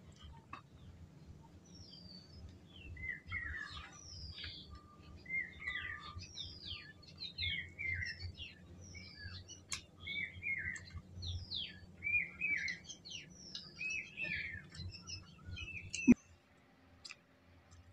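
A bird calling over and over, about once a second: a short high note sweeping downward, then a lower hooked note. Underneath runs a low hum, and a sharp click near the end is the loudest sound.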